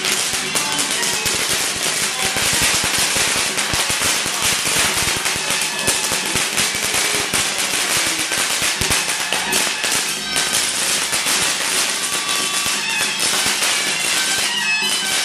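A string of firecrackers crackling densely over Daoist ritual band music; the crackling thins out after about ten seconds while the music plays on.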